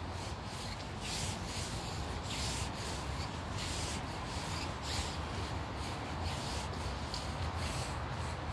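Footsteps on a cobblestone path, a short scuff about once a second, over steady rubbing and low rumble from a handheld phone's microphone.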